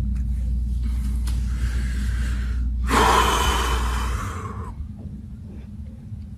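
A man's long, heavy breath close to a phone's microphone, starting about three seconds in and lasting under two seconds. A steady low hum runs underneath and drops away soon after the breath.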